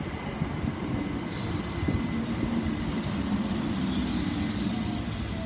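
Class 317 electric multiple unit drawing to a stop beside the platform: a steady rumble and low hum with a faint squeal, and a hiss of air that starts suddenly about a second in and carries on.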